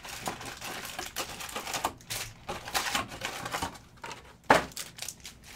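Crackling, clicking and rustling of a trading-card hobby box being opened and its foil-wrapped card packs handled, with one sharper knock about two-thirds of the way in.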